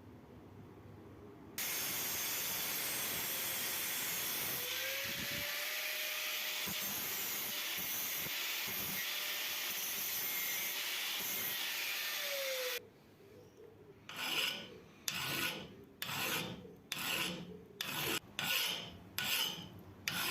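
Abrasive rubbing on the machete: a steady rasping noise for about eleven seconds that starts and stops abruptly, then separate back-and-forth rasping strokes, about one and a half a second.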